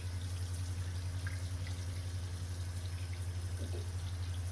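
Shower water running steadily, with a steady low hum underneath and a few faint drips.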